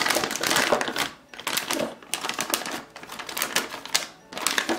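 Plastic piping bag packed with butter slime crinkling and clicking as it is handled and pulled out of a cup, in several rapid crackly bursts with short pauses between.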